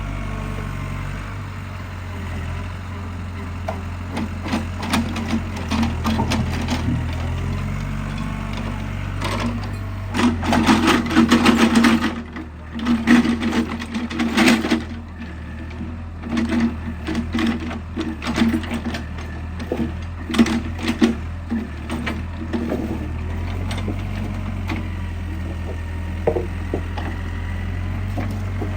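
An excavator's diesel engine running steadily while logs knock, crack and clatter against each other as they are grabbed and loaded. The clattering comes in irregular bursts and is heaviest about ten to fifteen seconds in.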